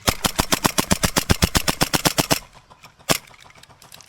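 Airsoft rifle firing a full-auto burst of about eleven shots a second for roughly two and a half seconds, then a single shot about half a second later.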